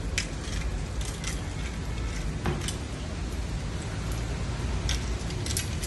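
Scattered light clicks and clinks from two tussling ringneck parakeets, from their metal leg chains and beaks, a few in quick clusters near the start and again about five seconds in. Under them runs a steady low rumble of street traffic.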